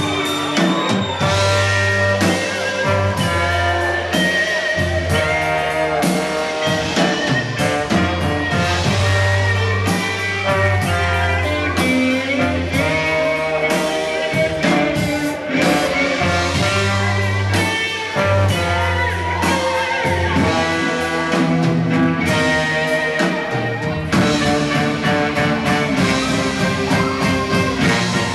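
Live band music playing continuously, with guitar and sustained low bass notes.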